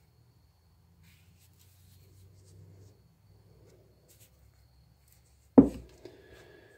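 Faint rubbing and handling of stone artifacts, then a single sharp knock about five and a half seconds in, as a stone is set down or picked up.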